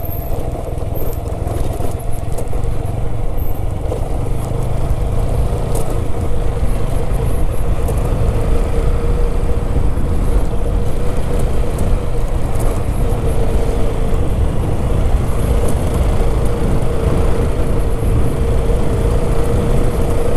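Motorcycle running steadily while being ridden along a road, a continuous low rumble with a steady hum above it.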